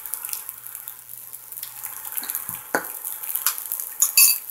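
Fried rice with peas and carrots sizzling steadily in a hot nonstick pan, with a few light ticks and a sharp ringing clink near the end.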